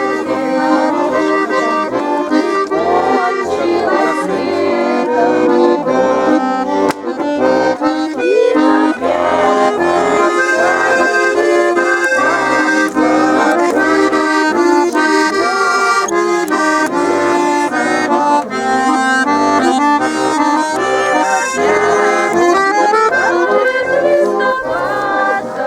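Russian garmon accordion playing a traditional folk tune without a break, a melody over steady repeated chords.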